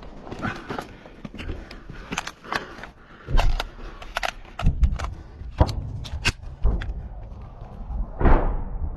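Irregular small-arms gunfire in a firefight: sharp single shots and short strings of shots, some loud and close, others fainter and farther off, over the rumble of a body-worn camera rubbing against a tree. A louder report comes near the end.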